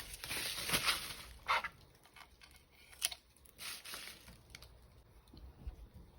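Packaging being handled and torn open: a stretch of rustling and crinkling, then scattered light clicks and crackles, with one sharper click about three seconds in.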